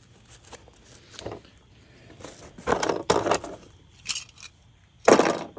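Nylon chest rig being handled: fabric rustling and scraping with small plastic clicks from its buckles, a longer stretch of rustling midway and a louder, sharp rasp near the end.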